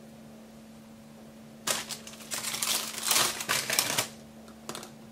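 Plastic sleeve of wafer ice cream cones crinkling and crackling as a cone is pulled out of it: a dense run of small crackles lasting about two seconds, then a brief softer rustle near the end. A faint steady low hum runs underneath.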